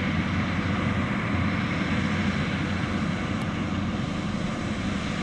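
John Deere 9520RX tracked tractor's 520 hp diesel engine running steadily under load while pulling a fertilizer spreader across the field.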